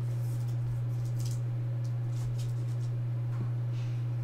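A steady low hum throughout, with a few faint, brief rustles and slides of trading cards being handled and set onto a stack.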